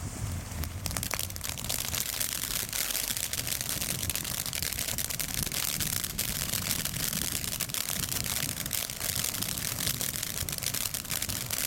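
Brothers Fireworks 'Keg Party' ground fountain spraying sparks, with a dense, steady crackle over its rushing hiss; the crackle sets in about a second in.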